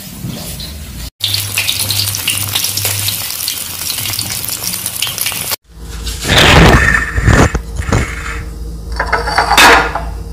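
Fish frying in hot oil, a steady sizzle; after a cut, metal spoons scraping and clinking against china plates as the fried fish is broken apart and served.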